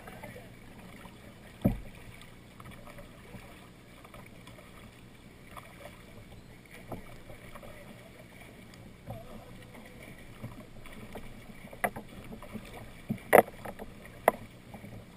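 Kayak paddling on a river: paddle blades dipping and splashing in the water, with a few sharp knocks, the loudest near the end.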